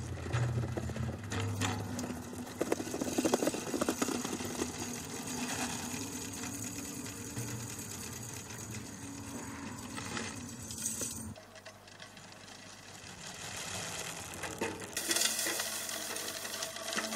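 Dense metallic jingling and rattling of tambourines rolling and tumbling over desert sand, heard from a video artwork played through loudspeakers into a lecture hall. The jingling drops away about eleven seconds in and comes back brighter and louder near the end.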